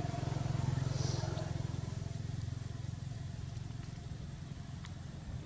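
A motor vehicle's engine running with a steady low drone, loudest about a second in, then slowly fading.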